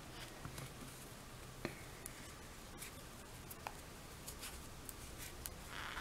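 Faint, scattered small clicks and soft rustling of a crochet hook pulling yarn through stitches, over a low room hiss.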